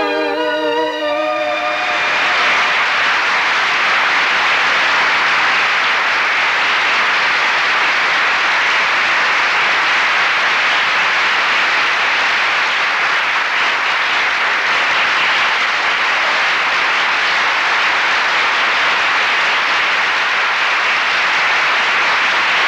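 The stage music ends about a second and a half in, then a large audience applauds steadily.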